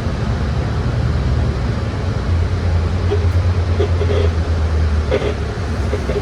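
Inside a moving bus: a steady low engine drone, with short creaks from the bus's body and fittings several times in the second half.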